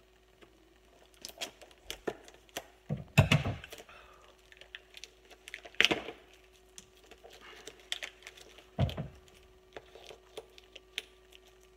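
Scissors cutting and prying at hard plastic packaging: scattered clicks and cracks of plastic, with heavier knocks about three, six and nine seconds in, the one near three seconds the loudest. A faint steady hum runs underneath.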